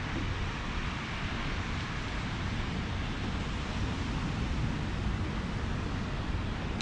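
Wind buffeting the microphone in a steady low rumble, over a continuous hiss of ocean surf washing on the beach.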